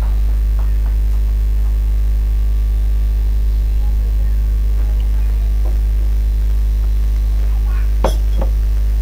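A loud, steady low hum with no break, and two short clicks about a second apart near the end.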